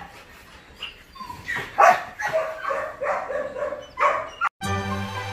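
A dog barking and yipping in a quick series of short calls. After a brief dropout near the end, music begins.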